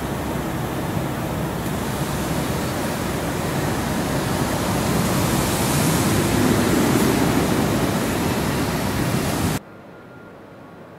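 Pop-up lawn sprinkler spraying jets of water: a steady hiss of spray that swells slightly midway, then cuts off suddenly near the end, leaving a much quieter steady background.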